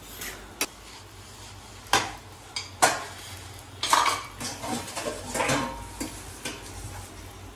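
A metal utensil knocking and scraping in a frying pan as a child chops at and breaks up an omelette: a few sharp knocks in the first three seconds, then scraping strokes.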